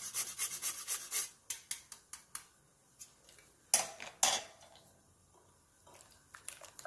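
Whole nutmeg grated on a metal rasp grater: quick rasping strokes, about four a second, that slow and stop after about two seconds. Two sharp metallic clinks follow in the middle as the grater is handled, then faint scraping of a spatula in a glass bowl near the end.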